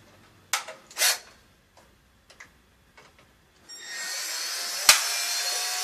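A few light clicks of handling, then a cordless drill-driver runs for about two and a half seconds, high-pitched and steady, driving a screw into the water heater's electrical junction box, with one sharp click partway through.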